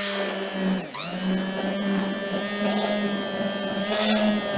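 Bamix hand blender with its disc attachment running in milk, whipping it into froth. It makes a steady high motor whine whose pitch dips briefly about a second in and then recovers.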